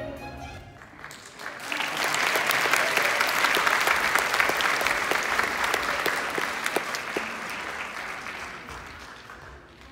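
Audience clapping at the end of a song: the music stops in the first second, then applause swells about a second and a half in and slowly dies away near the end.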